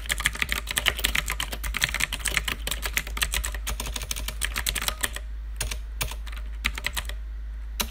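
Typing on a computer keyboard: a fast run of keystrokes for about five seconds, then a few scattered keystrokes near the end.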